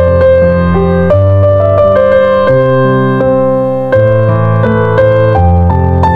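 Background piano music: a quick run of notes over held bass notes, at an even, steady level.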